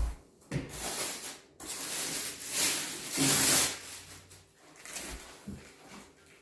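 Plastic wrapping rustling and crinkling as plastic-wrapped parts are handled and pulled out of a cardboard box, loudest in the middle, with a few dull knocks of parts and cardboard near the start and about five seconds in.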